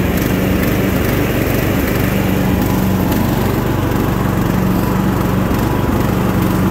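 Single-cylinder 15 hp Briggs & Stratton engine of a Sears Craftsman hydrostatic riding mower running steadily as the mower drives across grass.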